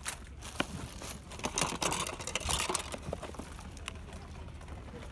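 Rustling and light clicks of Subbuteo table-soccer cardboard boxes and plastic parts being moved about by hand in a plastic storage tub, busiest from about a second and a half to near three seconds in.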